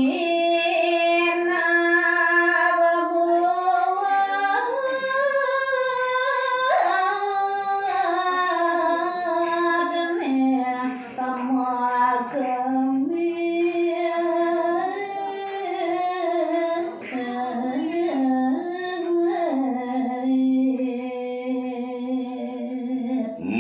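A woman singing a verse of Balinese tembang (pupuh Sinom) unaccompanied, in long held notes that slide and step between pitches.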